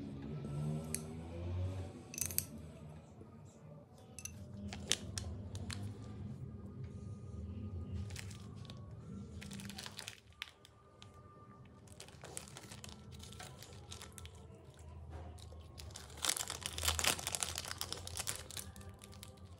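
A spoon clicks and scrapes against a glass bowl as the topping is scooped out. Near the end, a plastic cheese-slice wrapper crinkles and tears loudly.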